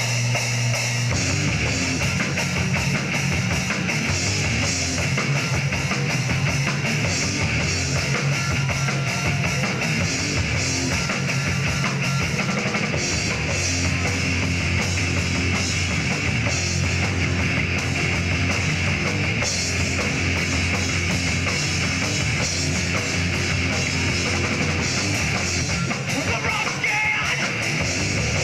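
Live rock band playing a loud, heavy song on drum kit and electric guitars, steady and dense throughout.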